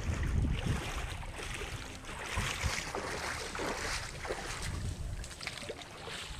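Footsteps splashing through shallow seawater as a person wades ashore carrying a cast net, with a run of irregular splashes and sloshes.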